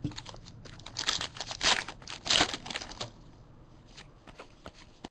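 A trading-card pack wrapper crinkling and tearing as it is opened, in several bursts between about one and two and a half seconds in. Quieter clicks of cards being handled follow.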